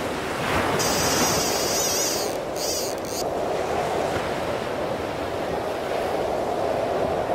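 Surf washing up a sandy beach, a steady rushing of breaking waves, with wind buffeting the microphone. About a second in, a high whirring sound runs for roughly two seconds over the surf.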